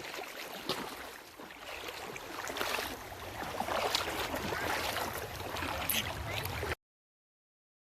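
Water and wind noise outdoors with a low rumble and small scattered knocks, cutting off suddenly near the end.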